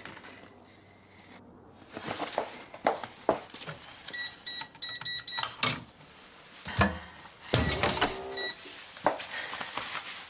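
Irregular knocks and clicks of movement and handling, with a short run of high electronic beeps about four seconds in and a brief one again near eight seconds.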